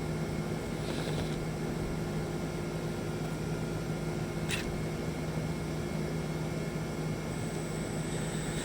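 Steady low mechanical hum, like a fan or motor running, with a single faint click about halfway through and a faint high whine coming in near the end.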